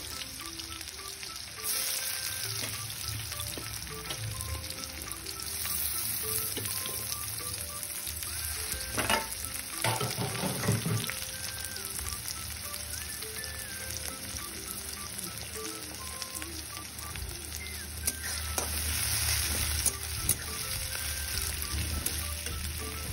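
Sliced onions sizzling as they fry in hot mustard oil in a steel kadai, being stirred, the sizzle getting louder about two seconds in. A few louder knocks about halfway through.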